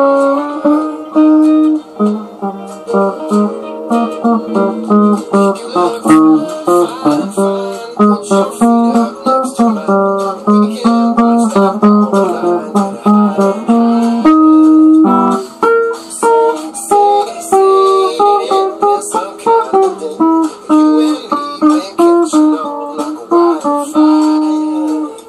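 Single-cutaway electric guitar being played: a busy melodic line of picked notes and short chords, several notes a second.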